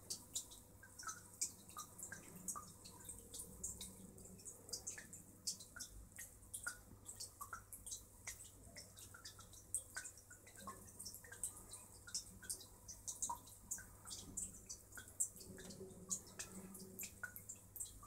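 Faint, irregular patter of water drips and small splashes, several a second, of aquarium water circulating.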